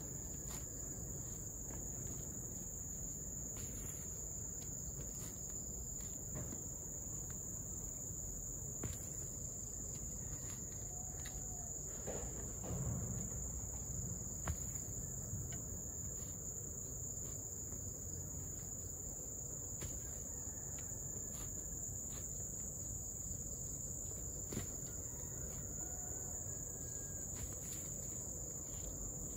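A steady high-pitched insect drone runs throughout. Over it come scattered dull knocks of a hoe chopping into soil, the loudest about halfway through.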